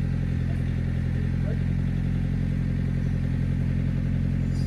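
An engine running at a steady idle, a low, even hum that does not change.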